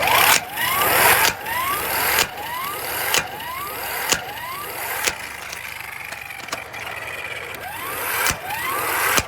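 Electric impact wrench hammering steadily against a lug nut that won't budge, with a regular knock about once a second and a short rising whine after each knock.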